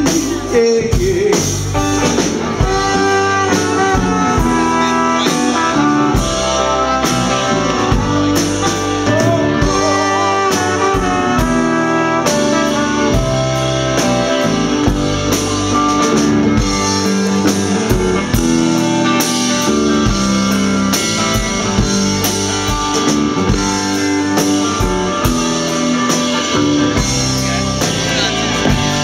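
Live soul band playing an instrumental passage, with horns, electric guitar and drum kit.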